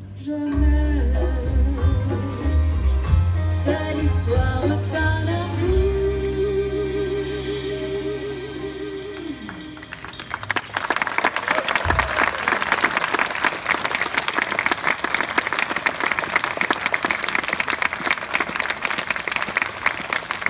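A small jazz band with drum kit and congas plays the end of a song while a female singer closes on one long held note with vibrato. The music stops about ten seconds in, and audience applause follows to the end.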